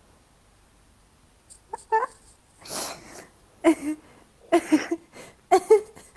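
A person's short nonverbal vocal sounds: a breathy puff and a few brief voiced bursts, starting about a second and a half in.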